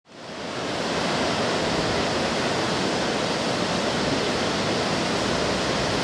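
Waterfall running: a steady, even rush of falling water that fades in over the first second.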